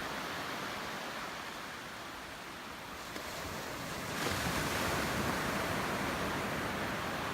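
Ocean surf washing in steadily, easing off for a moment and then swelling louder about four seconds in as a wave comes in.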